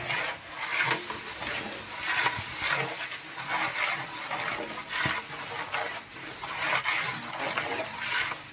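A long metal ladle stirring sliced tomatoes through hot oil and masala in a large metal cooking pot: wet, sloshing scrapes in steady strokes about one or two a second.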